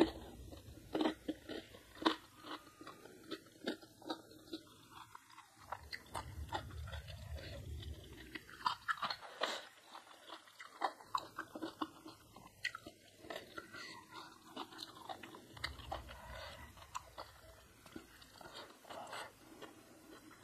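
A person chewing and biting into crunchy food close to the microphone, with irregular crisp crunches several times a second.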